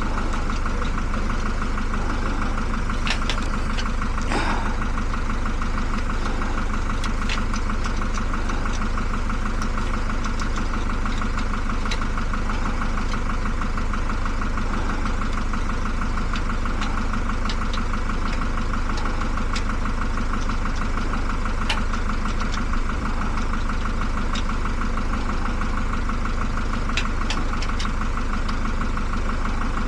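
Vehicle engine idling steadily, with a few short, sharp clicks scattered over it.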